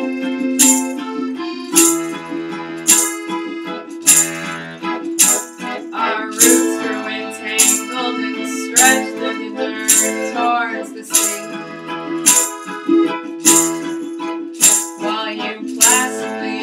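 Instrumental passage of a live acoustic folk song: sustained reedy melody notes over a sharp percussive beat that strikes about once a second.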